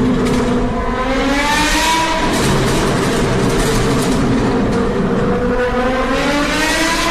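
Car engine with a loud exhaust revving: the pitch climbs about a second in, settles back, then climbs again through the second half.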